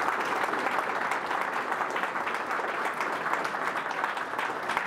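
Audience applauding: many hands clapping together in a steady, dense patter.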